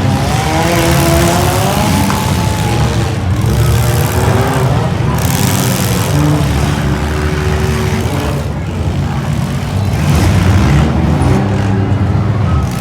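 Compact demolition-derby cars' engines running and revving together, with the pitch rising and falling.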